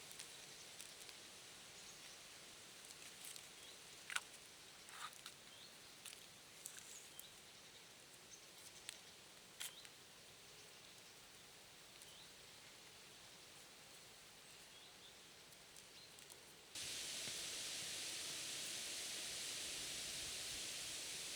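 Quiet outdoor ambience with scattered faint clicks and ticks. About two-thirds of the way through it switches abruptly to a louder, steady hiss.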